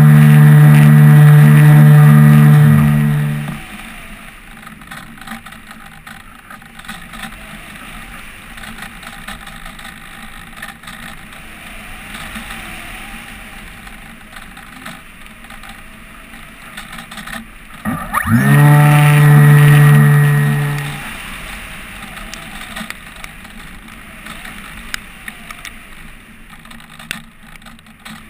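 An RC glider's motor and folding propeller running at full power with a steady pitch, cutting out about three seconds in. About eighteen seconds in it spins up again with a quick rising whine, runs for about three seconds and stops. In between, air rushes steadily past the nose-mounted camera while the glider glides with the motor off.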